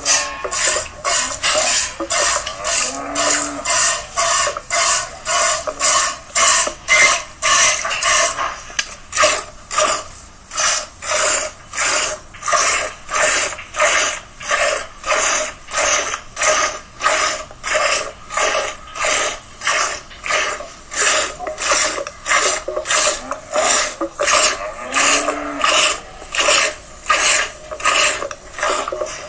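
Cow being milked by hand: streams of milk squirting into a pail in a steady rhythm, about two squirts a second.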